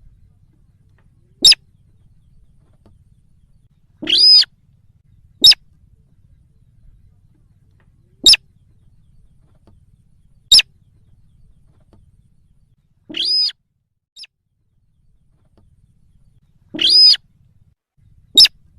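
Recorded calls of the bird known in Indonesia as sintar, played as a lure: sharp, very short notes spaced a few seconds apart, mixed with three longer harsh calls of about half a second that rise and fall in pitch.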